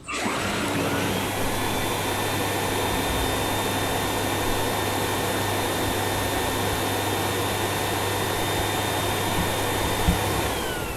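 Vacuum cleaner motor running: its whine rises as it spins up just after the start, holds steady, then begins to wind down near the end.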